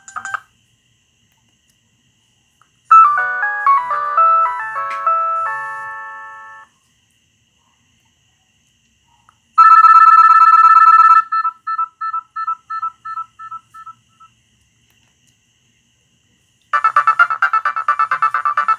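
Nokia 6010 mobile phone playing its alert tones one after another, with pauses between them. About three seconds in there is a short chime of stepping notes that fades out. Around ten seconds in comes a loud buzzy tone that breaks into a run of fading beeps, and near the end a new tone of rapid pulsing notes starts.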